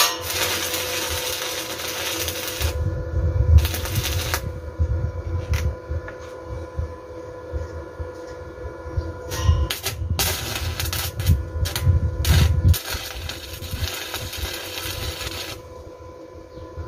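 Stick (arc) welding on steel pipe with a small inverter welder: the arc crackles and sizzles in stretches, with a pause of several seconds in the middle, scattered sharp clicks, and irregular low thumps. A steady hum runs underneath.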